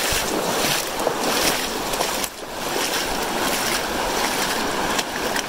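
Shallow, fast river (the North Fork of the Virgin River) running over a rocky bed: a steady rushing hiss of moving water, dipping briefly about two seconds in.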